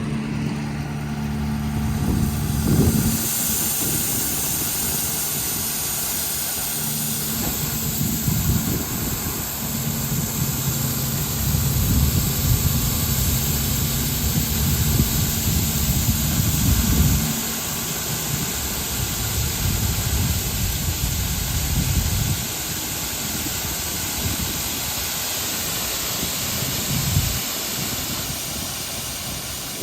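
A machine's engine running under a steady loud hiss; the engine's low hum swells and fades several times.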